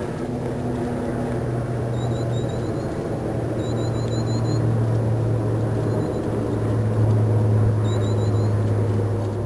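Common chiffchaff singing faint runs of short, evenly repeated high notes, three times, over a louder steady low hum.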